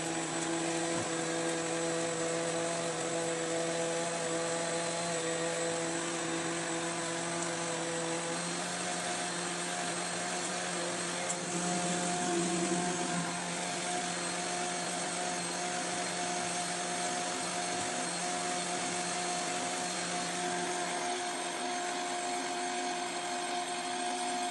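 Steady whirring machine hum with hiss, like a running fan or blower motor, holding several even tones without a break.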